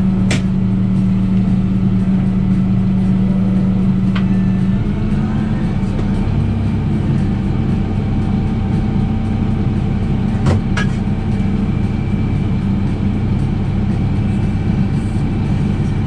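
Tractor engine running steadily, heard from inside the cab; about five seconds in its note shifts slightly higher and holds there. A few sharp clicks are heard along the way.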